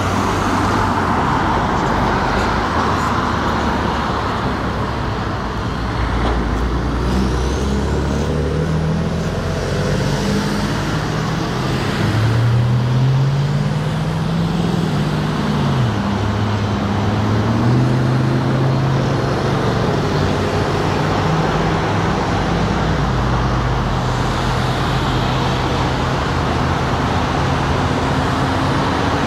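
Steady road traffic: cars and trucks driving past, with tyre noise and engines whose pitch rises and falls as vehicles speed up and slow, most plainly about halfway through.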